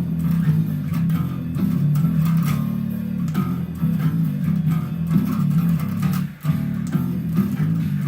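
Bass guitar playing a line of low notes at the end of a song's second chorus, with a short break about six seconds in.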